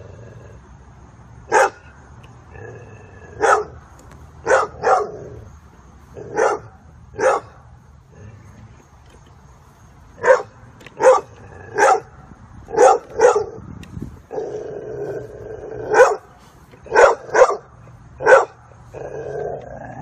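A dog barking, about fifteen short barks at irregular intervals, several coming in quick pairs.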